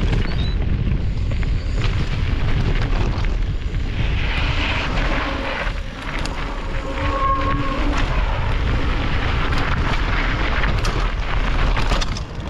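Wind rumbling on the camera microphone during a mountain-bike ride, with scattered clicks and knocks from the bike rattling over rough trail.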